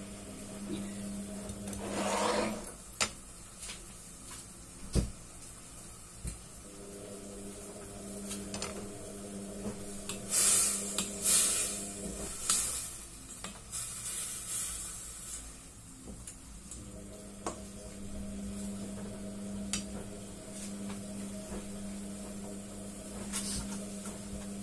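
A cooking utensil scraping and clinking against a stainless steel pot as its contents are stirred, loudest in the middle stretch, with a few sharp knocks earlier. A steady low hum runs underneath.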